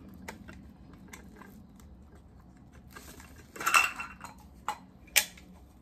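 A small clear plastic pull-cord garlic chopper being handled as its lid is worked off: light plastic clicks and taps, a short loud rattle a little after halfway, and a sharp click near the end.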